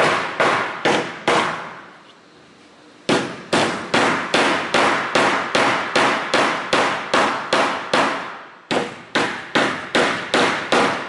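Claw hammer driving nails into a sheet of plywood: quick, even strikes about three a second. A few blows, a pause of about a second and a half, then a long steady run with one brief break.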